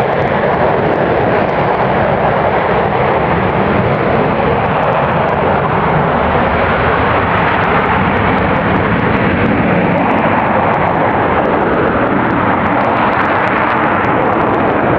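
F-35A Lightning II's Pratt & Whitney F135 afterburning turbofan giving a steady, loud jet roar at full power with the afterburner lit as the jet climbs steeply away.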